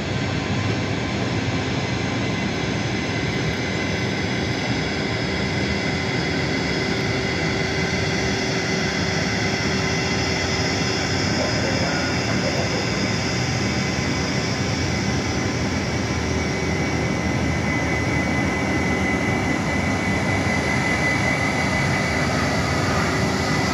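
Steady jet aircraft noise with an even high whine that grows stronger near the end.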